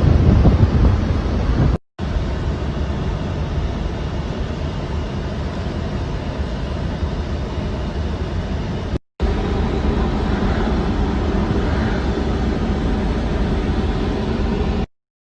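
Steady low rumble of a moving vehicle with wind buffeting the microphone, broken twice by abrupt cuts.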